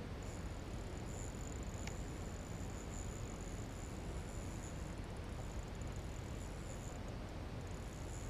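Insects buzzing steadily in a high pitch, with a brief break near the end, over a steady low rumble. A single faint click about two seconds in.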